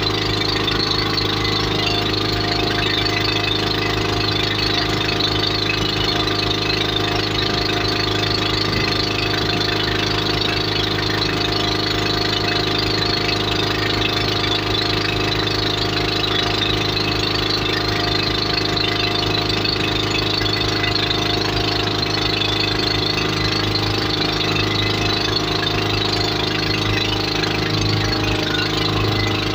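Motorboat engine running steadily at a constant speed, with an even, unchanging pitch.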